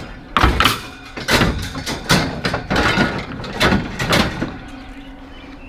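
Scrap metal being handled and thrown about, giving a quick series of bangs and clanks, about eight in the first four seconds, after which they stop.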